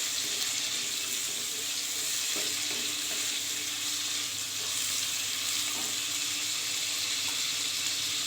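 Onion and chopped tomatoes frying in sesame oil in a pan, a steady sizzle.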